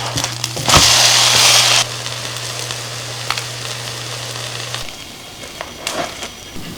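Food sizzling in a hot frying pan, with a louder surge of sizzling for about a second near the start and a few light clicks of utensils. A low steady hum underneath stops about two-thirds of the way through.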